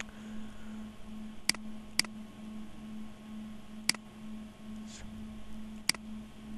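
Computer mouse clicking four times, short sharp clicks spaced irregularly, over a faint steady hum.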